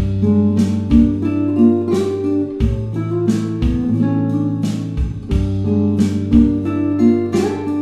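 Background music: a plucked guitar tune over a bass line, with notes struck about once a second.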